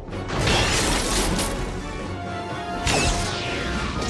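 Soundtrack music with cartoon explosion and crash sound effects. There is a sudden noisy burst just after the start, and another sharp hit near three seconds in, followed by a falling sweep.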